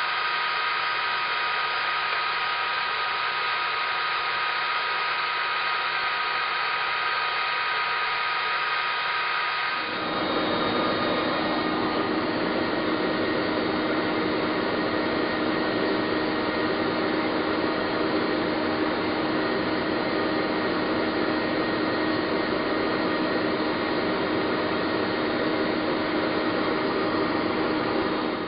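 Wood lathe running with a cloth buffing wheel spinning on its spindle: a steady motor whir with a constant whine. About ten seconds in, the sound changes and turns fuller and lower.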